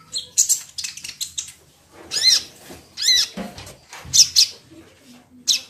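Sunbird (kolibri ninja) calling in a cage: a string of short, sharp, high-pitched chirps and twitters, some rising and falling within each note.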